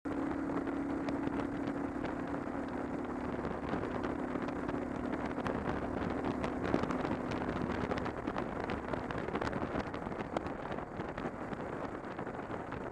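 Motorcycle on the move, engine running at steady road speed under heavy wind noise on the camera microphone; the steady engine note fades into the wind rush about eight seconds in.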